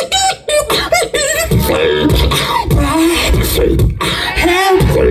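Live human beatboxing through a handheld microphone and club PA: quick drum-like kicks, snares and clicks over sliding pitched vocal tones and a deep bass line, unbroken throughout.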